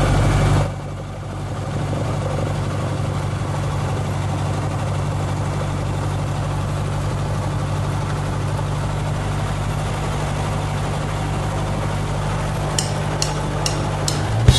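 Cessna 150's four-cylinder Continental O-200 engine running steadily at low taxi power, heard from inside the cockpit. A few light ticks come near the end.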